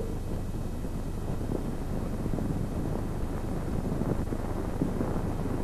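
Steady hiss and crackle of a worn 1930s optical film soundtrack, with faint scattered ticks and no other clear sound.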